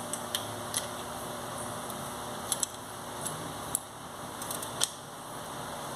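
Scattered light clicks and taps of small parts being handled and fitted on a disassembled motorcycle engine's cam chain tensioner, over a steady background hiss.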